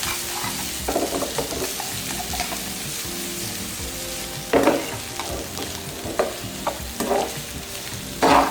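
Sliced onions, garlic and green chillies sizzling in hot sunflower oil in a kadai, with a steady frying hiss. A utensil scrapes and stirs through them every few seconds, loudest about four and a half seconds in and again near the end.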